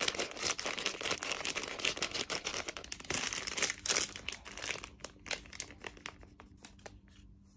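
Plastic candy bag crinkling in the hands and being torn open: dense crackling for about four and a half seconds, then a few sparser crinkles as the opened bag is spread.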